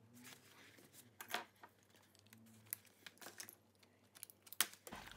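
Faint, scattered soft clicks and wet mouth sounds of someone chewing a chewy sugar candy.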